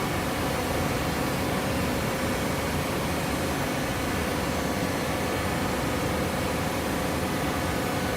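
Hydraulic fiber baler running: a steady mechanical hum and rush with a faint held whine, even throughout with no distinct strokes or impacts.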